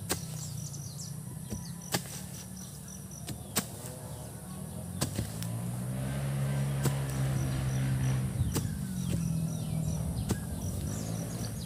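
A motor vehicle's engine hum swells and fades as it passes, over a run of sharp knocks every second or two. Insects chirp steadily in the background.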